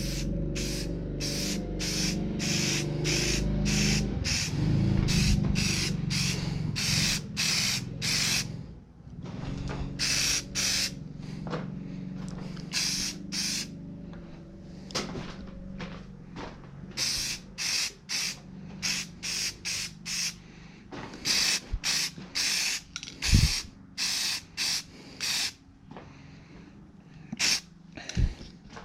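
Aerosol spray-paint can fired in dozens of short hissing bursts, about one a second, putting a light first coat on plastic truck mirrors. A low steady hum runs under the first eight seconds or so, and two sharp knocks come near the end.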